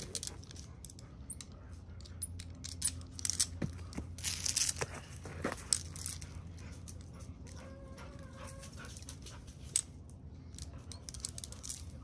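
A dog's harness and collar being handled and fastened: scattered clicks and rustling, with a louder tearing rasp about four and a half seconds in.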